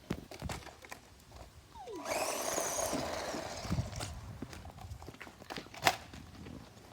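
Toy remote-control car driving and clattering over a hard surface, with a run of scattered knocks. About two seconds in, its electric motor whirs for a couple of seconds, and a sharp knock comes near the end.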